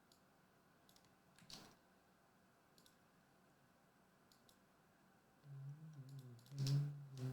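A handful of sharp, scattered computer mouse clicks, as a list is run through an online randomizer. A low mumbled or hummed man's voice comes in over the last two seconds.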